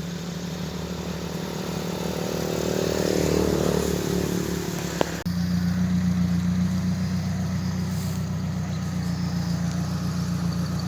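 A motor vehicle's engine running steadily, swelling briefly a few seconds in, with a click and an abrupt change in the sound about five seconds in.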